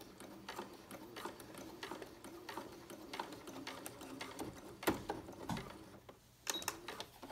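Janome sewing machine stitching slowly, basting a zipper in with an even ticking of about three stitches a second. A few louder clicks come about five seconds in and again near the end.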